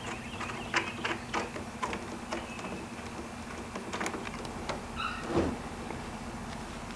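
Small scattered clicks and light rattles of metal hex bolts and handlebar riser parts being unscrewed and handled by fingers. About five seconds in there is a short metallic ring, then a dull knock, over a faint steady hum.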